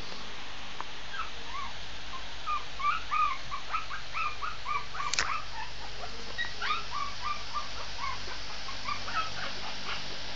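Shih tzu puppy whimpering and yipping in many short, high-pitched cries that come in quick clusters. A single sharp click about halfway through.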